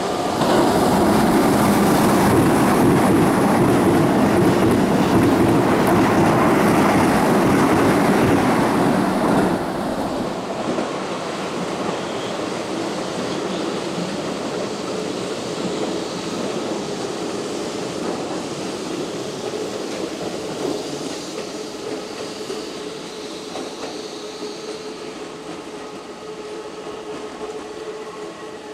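Keihan 8000 series express train running through the station at speed, a loud rumble of wheels on rail for about nine seconds that drops off sharply. Quieter rail noise follows as trains move slowly over curved track in rain, with a faint steady tone rising out of it toward the end.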